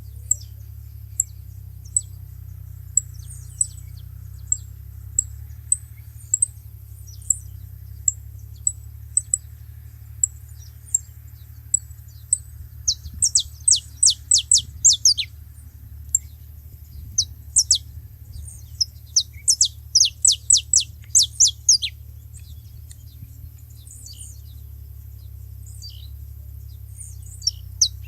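Saffron finches calling: sharp, high single chirps about once a second, then, from about halfway in, several quick runs of rapid, steeply falling chirps. A steady low hum lies underneath.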